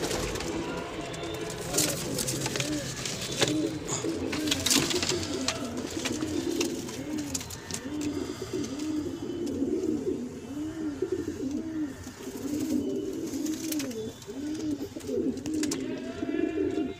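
Madrasi pigeons cooing over and over, each coo a short note that rises and falls, coming about once a second. A few sharp clicks and knocks sound in the first five seconds.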